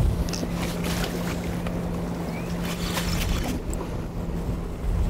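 Wind buffeting the microphone aboard a small boat on choppy water, over a steady low hum.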